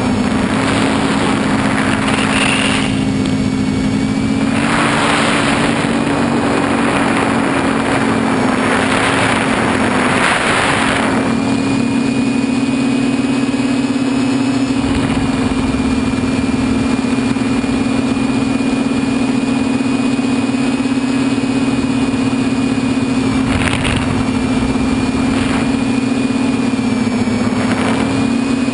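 TBS Discovery multicopter's motors and propellers droning in flight, a steady hum that shifts slightly in pitch, heard from the camera on board. Wind rushes over the microphone for much of the first half and in a few short gusts near the end.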